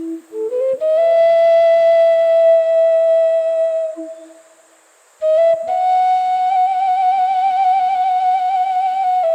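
Romanian caval, a long shepherd's flute, playing a slow doina lament. A quick run of rising notes leads into a long held note, which fades to a short pause. Then a higher long note is held with a wavering vibrato.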